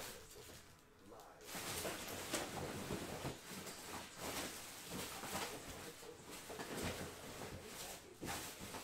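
Rustling and clattering handling noise: a dense crackly rustle with scattered clicks and knocks, starting about a second and a half in.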